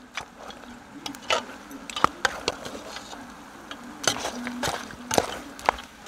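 A metal spoon knocking and scraping against a large cooking pot as chunks of curry goat are stirred, in irregular clanks about once or twice a second.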